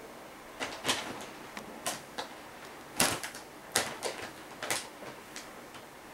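Brown paper bag crinkling in short, irregular rustles as kittens move inside it and paw at it, the loudest crackle about three seconds in.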